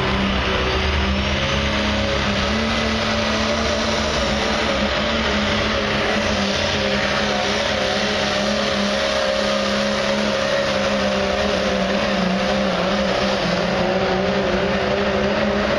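Diesel pickup truck engine under heavy load, pulling a weight-transfer sled; the revs hold nearly steady.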